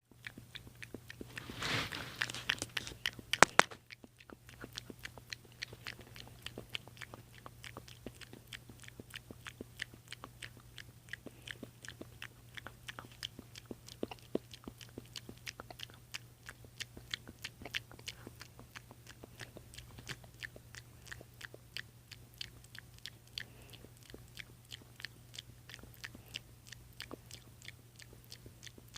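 A long run of sharp, short clicks, two or three a second at an uneven pace, over a steady low hum. A louder rustling burst and a few loud clicks come about two to four seconds in.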